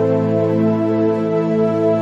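Ambient cinematic background music: soft, sustained chords held steady, shifting to a new chord shortly after it begins.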